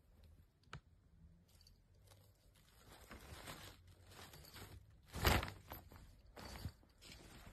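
Clear plastic bag crinkling and rustling as a cat crawls around inside it, in irregular bursts with a sharp tick about a second in, the loudest rustle about five seconds in.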